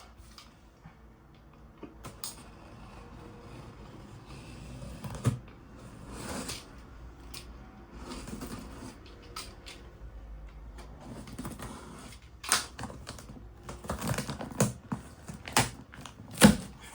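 Cardboard box and packaging being handled and opened by hand: scattered taps, clicks and short rustles. The knocks get louder and closer together in the last few seconds, with one sharp knock near the end.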